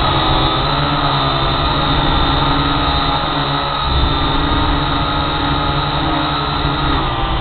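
Camera drone's electric motors and propellers running with a steady buzzing whine of several stacked tones; the pitch shifts near the end as the motors change speed.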